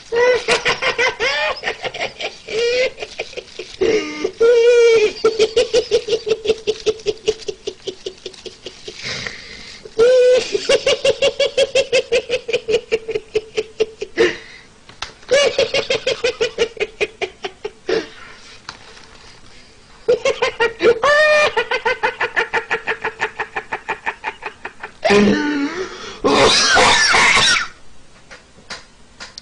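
A man laughing in long, high-pitched bouts of rapid staccato pulses, about six a second on one held pitch, with short pauses for breath between bouts. A loud rasping burst comes near the end.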